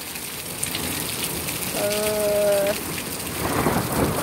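Heavy rain falling steadily on a garden, with a roll of thunder beginning to build in the last second after a lightning flash.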